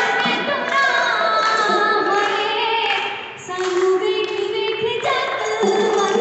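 A woman singing a Punjabi folk song (lok geet) into a microphone. About halfway through there is a brief break, then a long held note.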